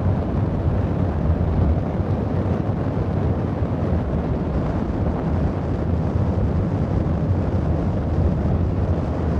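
Steady wind buffeting the camera microphone while parasailing high in the air, a dull rumbling rush with no breaks.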